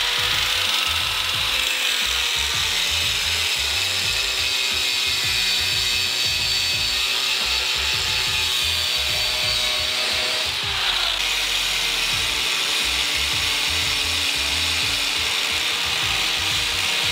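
Corded Black & Decker rotary tool with a cutting blade running steadily as it cuts through the plastic front bumper around a Mazda 3's grille opening. It gives a high, even whine that dips briefly in pitch a little past halfway.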